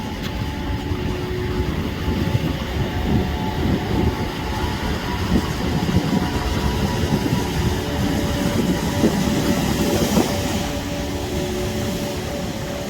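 Heavy surf from big spring-tide waves breaking against the shore, a steady deep rumble with a brighter rush of water about ten seconds in.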